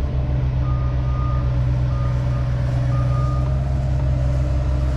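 Diesel engine of compact construction machinery running steadily and loud, with a backup alarm beeping three times.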